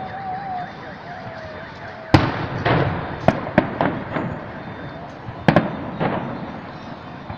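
Fireworks bursting: a string of about seven sharp bangs starting about two seconds in, each trailing off in echo.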